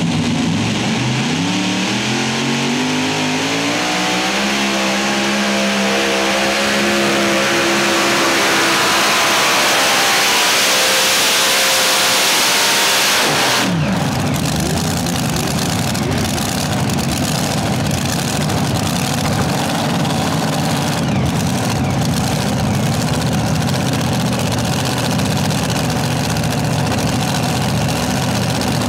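Multi-engine unlimited modified pulling tractor under full power down the track, its engines winding up in a steady rising whine for about thirteen seconds before cutting off sharply at the end of the pull. After that, another multi-engine pulling tractor rumbles steadily at low revs.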